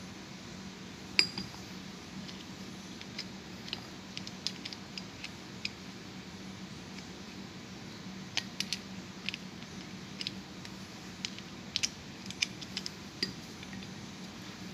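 Steel parts of a Copeland compressor's gear-type oil pump clicking and clinking as the pump gear is handled and seated in its housing by hand. One sharp clink comes about a second in, then scattered light clicks, with denser runs of clicks past the middle and near the end. A steady low hum runs underneath.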